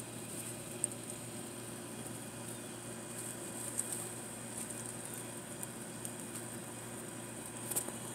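Quiet garden background: a steady high hiss with faint crackling over a low hum, broken by a few small clicks and rustles.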